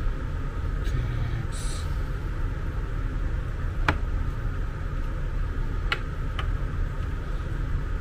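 A few sharp plastic clicks and knocks as hands handle an opened plastic appliance housing, over a steady low background rumble.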